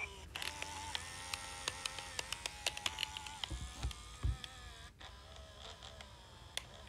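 A Furby Baby's internal motor and gears whirring faintly, with rapid irregular clicking as its mechanism moves its eyes and ears. Two or three dull thumps come about halfway through as the toy is handled.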